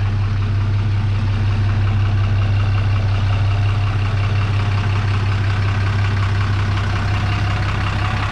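Ram 2500 Heavy Duty pickup engine running with a steady, deep hum at low speed as the truck backs up slowly.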